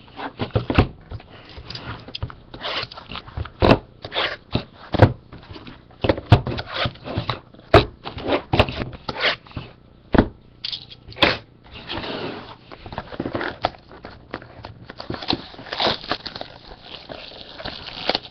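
Hands handling trading-card boxes and their packaging at a table: irregular sharp knocks and clicks among stretches of crinkling, rustling plastic and cardboard.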